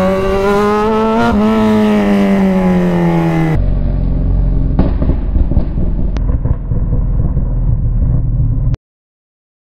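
Kawasaki Z1000's inline-four engine running under way, its note rising for about a second and then slowly falling. A little over three seconds in, the sound cuts abruptly to a duller rumbling engine-and-wind noise, which drops out to silence near the end.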